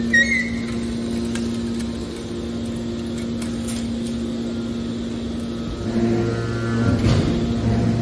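Hydraulic scrap metal baler running with a steady machine hum while it pushes a finished bale of scrap out. About six seconds in a deeper hum joins and the sound grows louder, with a short rough clatter just before seven seconds.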